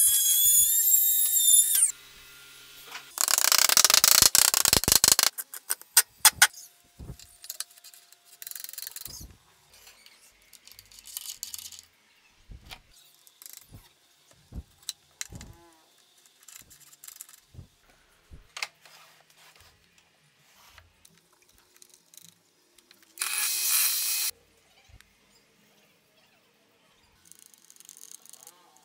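Compact INGCO trim router running with a high whine, then cutting into plywood with a loud, rough noise for about two seconds. A long run of sharp wooden knocks and clicks follows as parts are handled and clamped, with one more short, loud burst of power-tool cutting about two-thirds of the way through.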